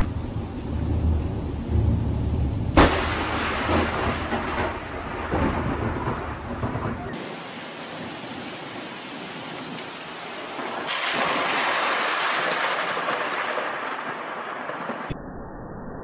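Thunderstorm with rain and rumbling thunder, and one sharp thunderclap about three seconds in. After about seven seconds it gives way to a steady downpour of rain, which grows louder about eleven seconds in.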